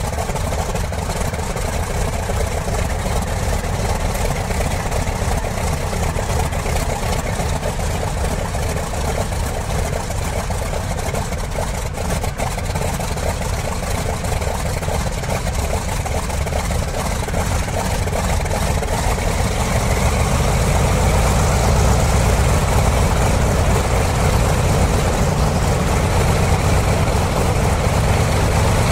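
Model 14-cylinder double-row four-stroke radial engine (97 cc) running steadily, getting somewhat louder about two-thirds of the way through.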